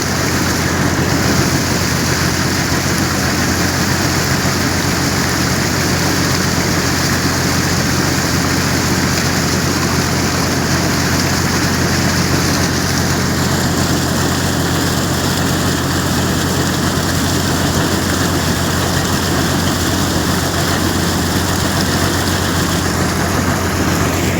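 Borewell being flushed with a compressed-air rig: a machine engine hums steadily under a loud, continuous rush of air and water gushing out of the well. About halfway through, the rushing thins a little in its upper range.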